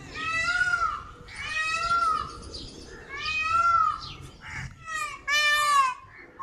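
Indian peafowl (peacock) calling: a series of about five loud, high calls, each under a second and arching up then down in pitch. The last ones come in quicker succession.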